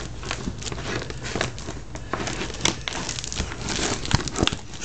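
A Bernese mountain dog's clear plastic medical cone scraping, crinkling and bumping on a wooden floor as he noses for a treat caught underneath it, with scattered sharp clicks, the loudest about two and a half seconds in.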